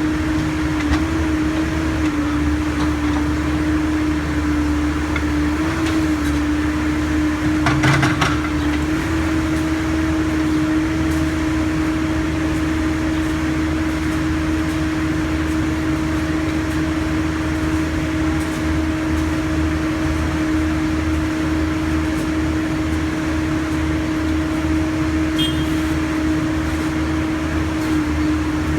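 Backhoe loader's diesel engine running steadily with a low rumble and a steady hum, its pitch stepping slightly a couple of times as the machine works. A brief clatter about eight seconds in.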